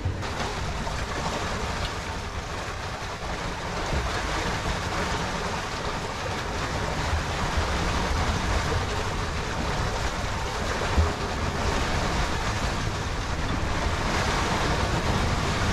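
Steady rush of wind and sea along a sailing yacht's hull as it sails fast, at about eight knots in around 20 knots of wind, with wind buffeting the microphone.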